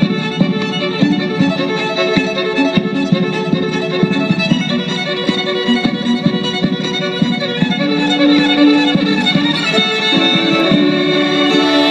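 Instrumental music with held, sustained notes, laid over the fireworks pictures in place of the display's own sound.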